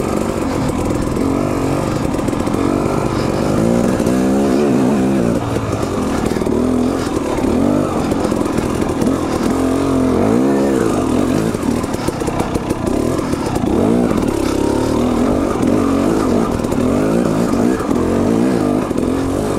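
Dirt bike engine heard close up from the rider's own bike, revving up and down over and over in short throttle blips while crawling over rocky trail.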